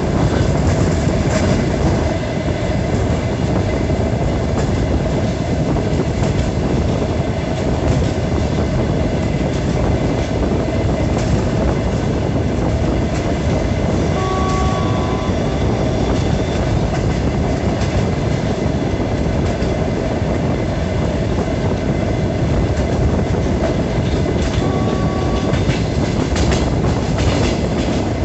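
DR1A diesel multiple unit running at speed, heard from an open carriage window: a steady rumble of wheels on rail with clicks over the rail joints. A few brief faint high squeals come about halfway and again near the end.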